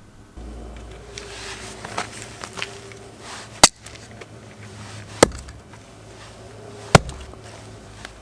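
Heavy axe splitting firewood: three sharp, loud cracks of the blade striking the wood, about one and a half seconds apart, with a few lighter knocks before them.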